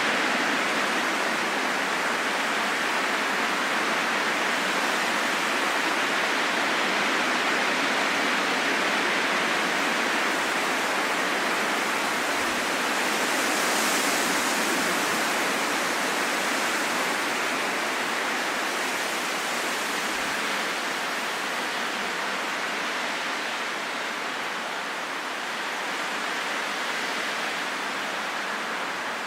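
Steady rushing wind, swelling a little about halfway through and easing slightly toward the end.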